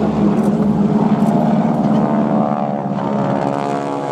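Boeing Stearman biplane's 450 hp Pratt & Whitney radial engine and propeller droning steadily, its pitch rising slightly partway through.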